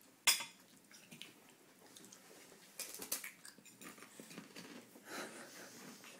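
A baby's breathing and wet mouth noises as he mouths the edge of a glass table, with a sharp knock about a third of a second in and a few light taps about three seconds in.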